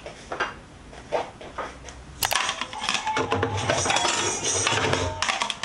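Light scattered clicks, then about two seconds in a dense clatter of dishes lasting about three seconds: plates and stainless steel bowls clinking and knocking together as they are lifted off a wire dish drying rack.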